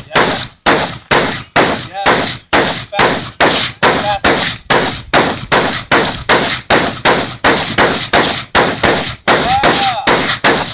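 AR-15 rifle in .223 firing a steady, rapid string of shots, about two a second without a break.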